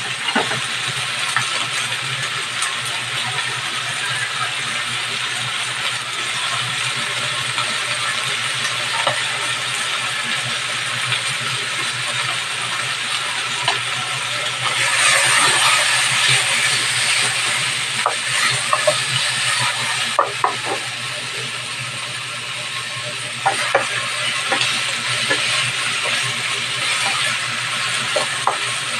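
Chicken pieces with onion and garlic sizzling steadily in a nonstick frying pan, the sizzle growing louder for a few seconds about halfway. A few sharp clicks come in the second half, and near the end a spatula scrapes through the frying chicken.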